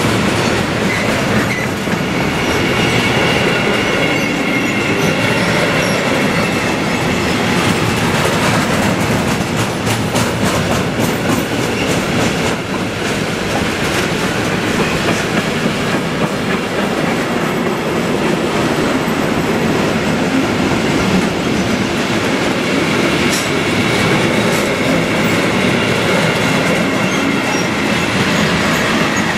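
A long train rolling past at close range, its wheels clicking over rail joints, with a faint high wheel squeal now and then.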